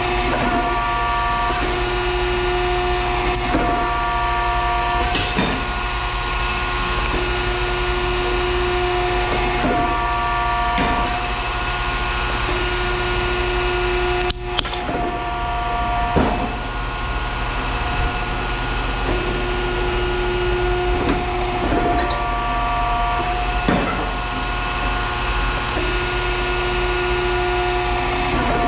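Machinery running steadily with a low hum, a whining tone cutting in and out every few seconds, and scattered knocks.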